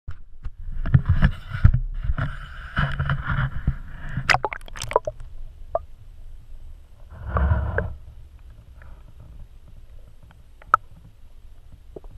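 A GoPro on a cable being handled and lowered into the river: knocks, rubbing and splashing for the first few seconds, sharp clicks around four to five seconds in, and a louder burst of knocking and water noise about seven seconds in. After that come quieter, muffled underwater sounds with a few isolated clicks.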